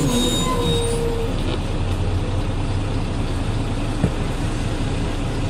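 Ikarus 280 bus's Rába D10 six-cylinder diesel running steadily at a low, even pitch, as at idle. There is a single sharp click about four seconds in.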